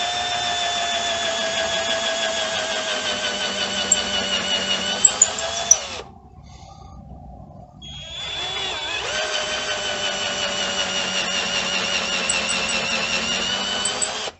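Power drill boring into a wooden chair leg with a 1/4-inch bit, in two runs with a short pause about six seconds in; the motor's pitch sags slightly as the bit cuts.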